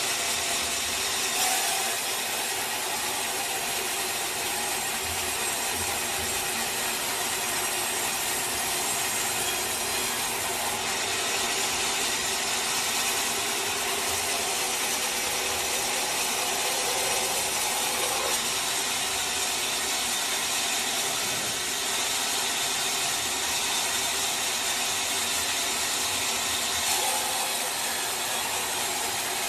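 Bandsaw sawmill running through a teak log, a steady even sound that carries on without a break.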